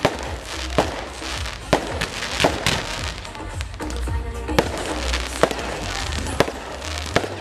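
Fireworks going off in quick succession, with sharp bangs about once a second and crackle between them. Music plays steadily underneath.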